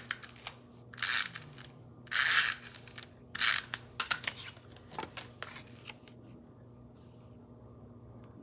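Sheets of card stock being handled and slid over each other: three short papery rustles in the first four seconds, with a few light taps and clicks.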